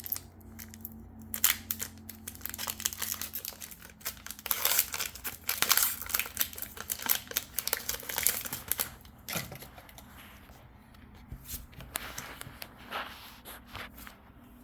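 Foil wrapper of a Pokémon booster pack crinkling and tearing as it is ripped open by hand, busiest in the middle, then lighter scattered crackles as the wrapper is handled.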